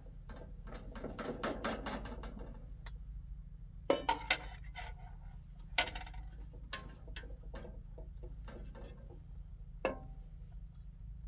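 Metal serving spoon scraping and clinking against a cooking pot and a steel plate as cooked rice is scooped out. A few sharper knocks come about four, six and ten seconds in.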